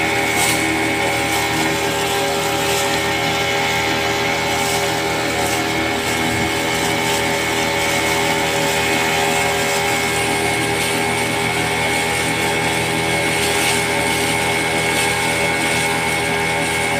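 Small wooden boat's motor running steadily at cruising speed, with the rush of wash along the hull.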